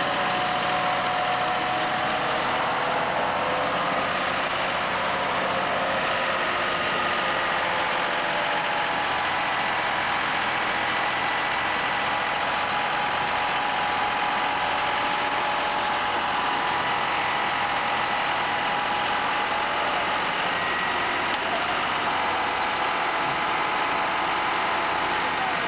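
Vacuum excavator's engine and suction blower running steadily, pulling air and soil up through the digging hose from a pothole.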